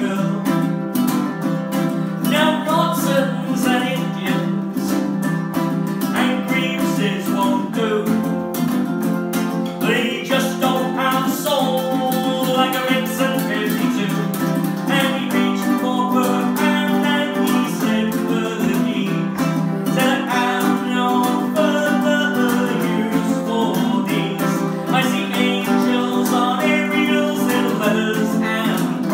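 Two ukuleles, one of them a baritone uke, strummed and picked together in a fast, driving folk tune.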